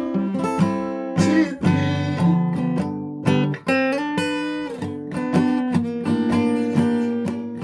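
Music: a guitar strumming chords.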